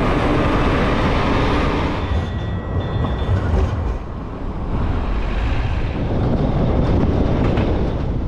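Steady low rumble of vehicle and road noise on a city drive, with a faint thin high whine for a moment about two seconds in.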